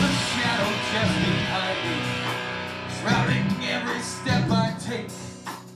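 Heavy rock band music led by electric guitars, with no singing; the full sound thins out to a sparser guitar passage partway through and dips down near the end.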